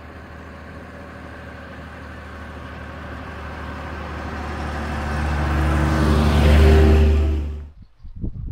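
Vintage IFA H6 bus's diesel engine running as the bus approaches and passes close by, growing steadily louder to a peak near the end, then cutting off abruptly.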